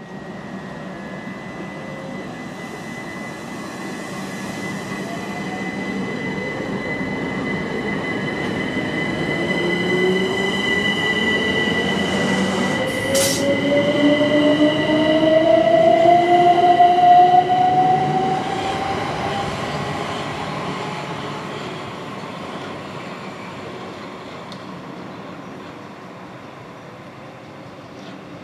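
Electrostar electric multiple unit pulling away from the platform. Its traction motor whine climbs steadily in pitch as it gathers speed, over a steady high tone. The sound is loudest a little past halfway, then fades as the train draws off, with one sharp click near the middle.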